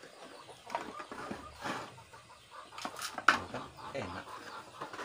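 Plates and plastic bowls clattering as they are handled and set down on a concrete floor: several sharp knocks, the loudest about three seconds in. Chickens cluck in the background.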